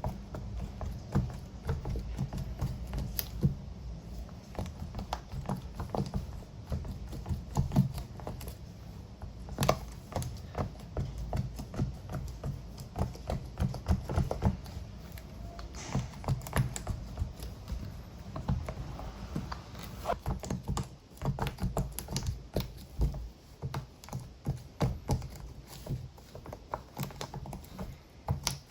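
Bubbles of a keyboard-shaped silicone push-pop toy being pressed in quick, irregular succession: a busy run of short clicks and pops, like typing.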